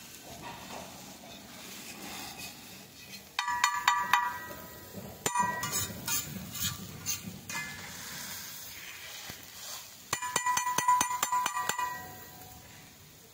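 A metal spoon or ladle stirring food in a metal cooking pot, clinking against the pot's side with a ringing tone. It comes in quick runs of strikes: a short run about three and a half seconds in, scattered strikes around five to seven seconds, and a longer run from about ten to twelve seconds.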